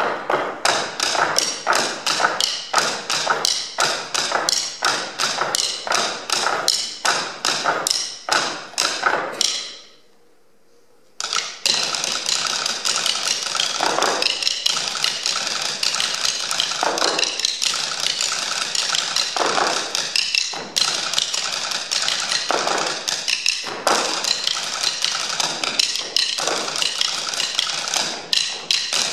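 Drumsticks striking tabletops in a four-player percussion ensemble, a rhythmic pattern of sharp taps. The playing stops for about a second and a half near the middle, then resumes denser with heavier accented strokes.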